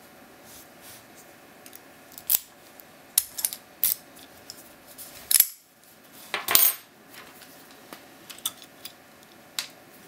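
Brass Vachette Achille 50 mm shrouded padlock handled and turned over in the hand: a scattered series of sharp metallic clicks and clinks, the loudest about two, five and six and a half seconds in, with lighter ticks near the end.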